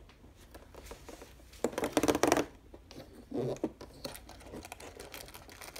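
Cardboard door of an advent calendar being pressed and torn open along its perforations: short scratchy tearing and rubbing noises, the loudest about two seconds in, then a second shorter burst and a few lighter clicks and scrapes.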